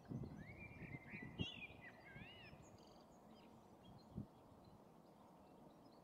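Faint birdsong: a songbird sings a run of quick, gliding whistled phrases in the first two and a half seconds, over a low outdoor rumble. There are two short soft knocks, one about a second and a half in and one about four seconds in.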